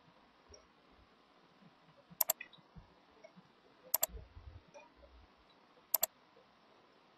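Computer mouse button clicking three times, about two seconds apart, each click a quick pair of snaps, while vertices are being picked one by one.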